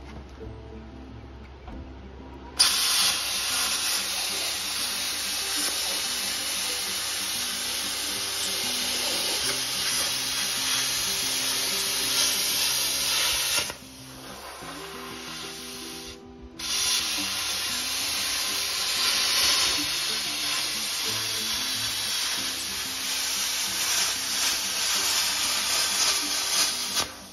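Hand-held plasma cutter cutting through rusty sheet-metal fender apron: a loud, steady hiss that starts abruptly about two and a half seconds in, stops for about three seconds midway, then runs again until just before the end. Background music plays underneath.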